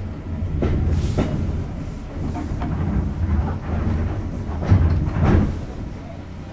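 Diesel-hauled train running, heard from inside a compartment: a steady low rumble with the wheels clacking over rail joints. There is a pair of clacks about a second in and a louder pair about five seconds in.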